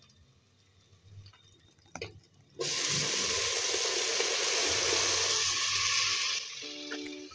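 Chopped mustard greens hitting hot ghee in a pressure cooker: a loud sizzle that starts suddenly about two and a half seconds in and fades after about four seconds.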